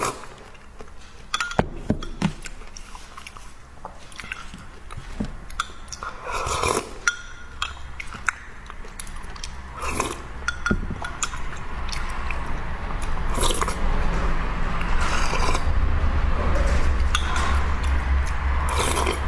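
Close-miked eating sounds: chewing and biting, with scattered sharp clicks. A low rumble builds from about two-thirds of the way in.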